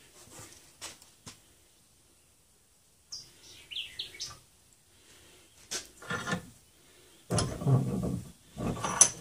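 Hands working a metal clamp on a hoe handle held in a bench vise: light knocks and a cluster of short high chirps about three seconds in, then two loud scraping, rubbing bursts near the end.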